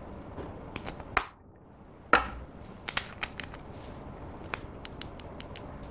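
Plastic lipstick case handled close to the microphone: a string of sharp clicks and taps, the loudest a pop about two seconds in as the clear cap comes off, then lighter ticks from the plastic tube.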